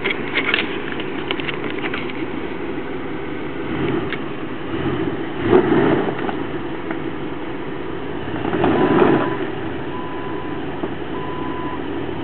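Jeep Wrangler TJ engine running low and steady while crawling over rocky ground, with two swells of throttle, about five and a half and nine seconds in, and a few clicks in the first second.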